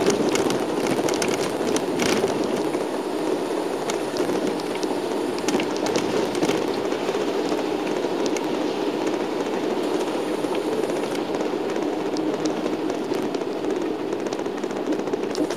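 Steady cabin drone of a shuttle bus on the move, heard from inside, with tyre noise on a wet road. Scattered light ticks come through, mostly in the first couple of seconds and again around six seconds in.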